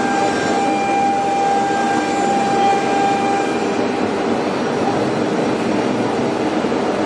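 CNC woodworking router running, a steady mechanical noise with a thin high whine that stops about three and a half seconds in.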